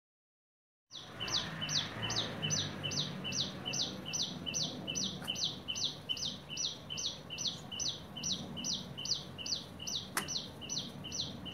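A bird calling over and over: a high note falling in pitch, repeated evenly about two and a half times a second, starting abruptly about a second in. A sharp click sounds near the end.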